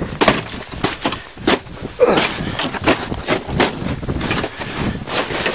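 Irregular crunching and scraping of deep snow with knocks and rustles, as someone digs in and works at opening a snow-buried car door.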